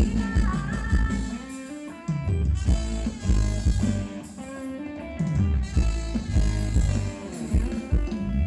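Live band playing upbeat Thai ramwong dance music, with a steady beat and prominent bass.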